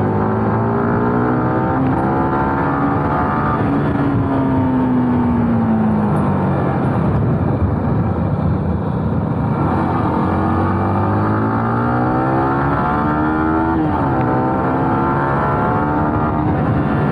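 Sport motorcycle engine heard from the rider's seat while riding: its pitch falls steadily as the bike slows for a bend, then climbs again as it accelerates out, with a brief dip at a gear change near the end.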